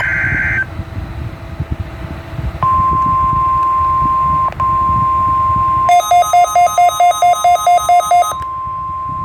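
NOAA Weather Radio weekly test signal. The tail of a warbling SAME digital header burst is followed by a short hiss. Then comes the steady 1050 Hz warning alarm tone, with one brief break. In the second half the tone gives way for about two and a half seconds to rapid electronic beeping, about five beeps a second, before it resumes.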